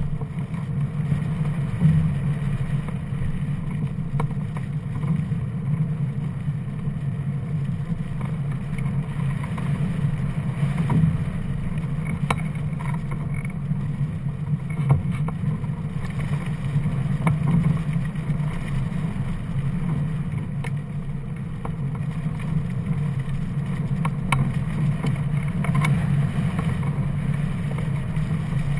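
Steady low rush of airflow buffeting a camera mounted on a hang glider in flight, with a few faint ticks.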